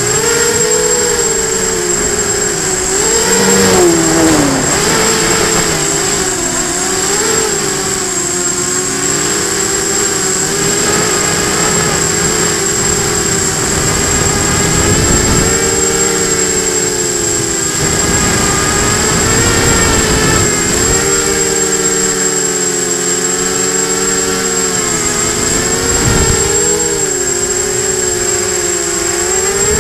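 FPV hexacopter's six brushless motors and propellers whining, the pitch swooping up and down as the throttle changes. Wind buffets the onboard camera's microphone in gusts, and a steady high-pitched tone runs underneath.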